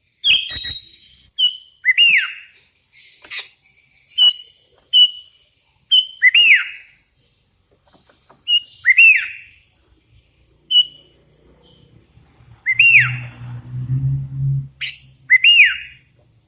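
Sooty-headed bulbul giving loud, short whistled calls with a sharp bend in pitch, repeated about every one to two seconds. A low hum runs briefly underneath near the end.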